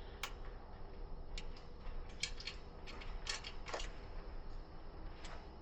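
A few light, irregular clicks and taps, about eight spread over five seconds, from a wall-mounted Echo Show and a TV swivel mount being handled.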